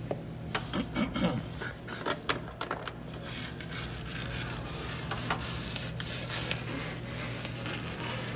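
Shiny vinyl wall covering crinkling and crackling as the trimmed waste strip is peeled off a double-cut seam, in a quick run of sharp crackles over the first few seconds and a few single ticks later, over a steady low hum.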